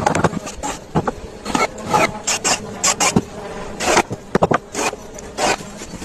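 Irregular knocks, taps and short scraping sounds of hand work on wood.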